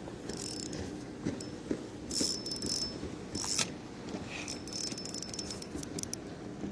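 Spinning reel being cranked in short spurts while jigging, giving a brief whirring hiss with each burst of winding, about four bursts with small ticks between them.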